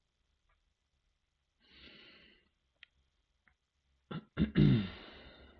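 A man breathing: a soft inhale, then near the end two short throat sounds followed by a louder voiced sigh out. A faint click falls between them.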